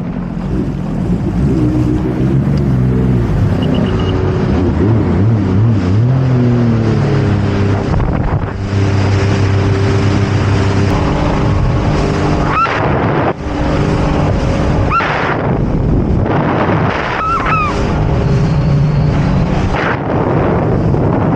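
Jet ski engine running and changing speed, its pitch rising and falling. About eight seconds in, a loud rush of wind on the microphone and water spray takes over as it gets under way.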